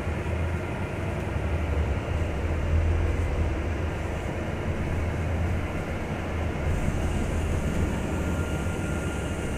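Double-decker bus engine and cabin rumbling steadily as the bus drives along, heard from inside on the upper deck. A faint hiss joins near the end.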